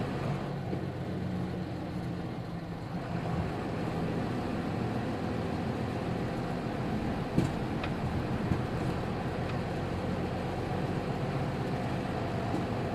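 Nissan Diesel KK-RM250GAN city bus's diesel engine running, with a steady low drone that eases off for the first few seconds and then returns. A single sharp click comes about seven seconds in.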